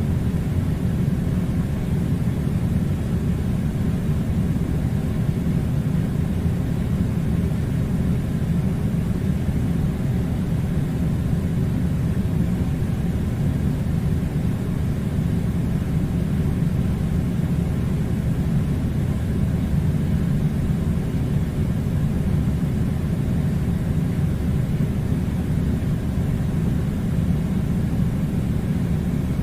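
Air conditioner running: a steady, low rush of blown air with a deep hum, unchanging throughout.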